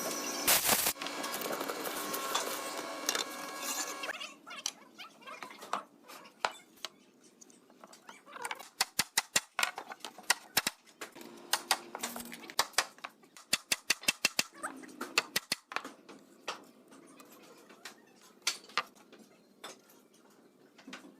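A power tool running steadily until about four seconds in, then woodworking knocks and taps: sharp, short strikes on wood, some in quick runs of several a second.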